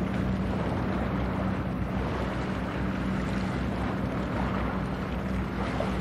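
A ship's diesel engine droning steadily with a constant low hum, over a haze of wind and water noise.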